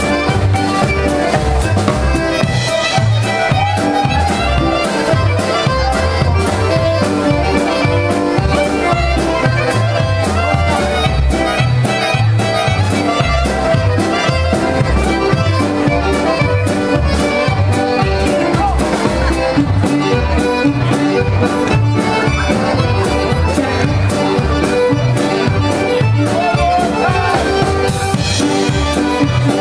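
Live polka band playing a polka: concertina and piano accordion with clarinet over a steady drum-kit beat.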